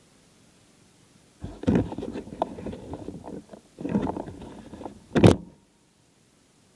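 Handling noise from the iPod that is filming: it is picked up and moved, rubbing and knocking against fabric and fingers in two spells of rustling, with a sharp loud knock about five seconds in.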